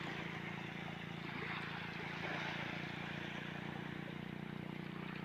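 A motor running steadily at an even pitch, under a constant hiss.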